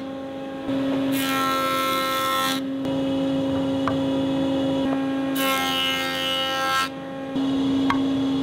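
Wood planer running with a steady whine, and twice, for about a second and a half each, a harsher hiss joins it as boards pass through the cutters.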